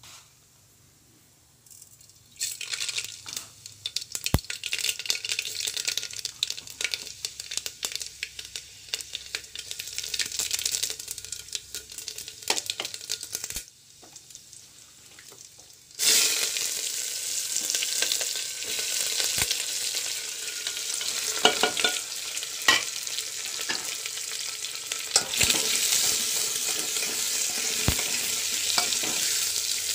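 Hot oil in an aluminium pot: seeds crackling and popping, starting about two seconds in. After a short lull about halfway through, a louder, steady sizzle takes over as chopped onion and other vegetables fry in the oil, with occasional clicks.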